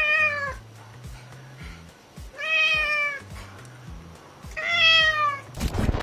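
Domestic cat meowing three times, each a drawn-out call falling slightly at the end, over background music with a steady low beat. A burst of static noise comes right at the end.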